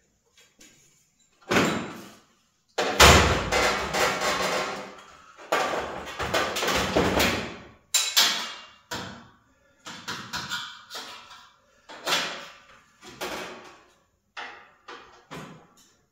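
Sheet metal being worked by hand: a string of knocks and clangs, each ringing out briefly, with a longer stretch of continuous metal noise in the first half.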